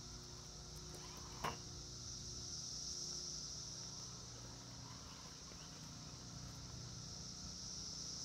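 Steady high-pitched insect chorus droning in the background, with one sharp knock about a second and a half in.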